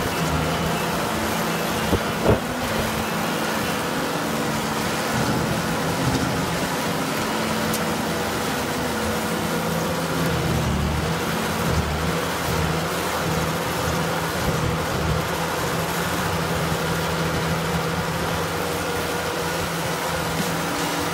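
Tracked stump grinder running steadily under load, its engine droning while the cutter wheel grinds a tree stump down to sawdust, with a dense grinding hiss over the engine; two sharp knocks about two seconds in.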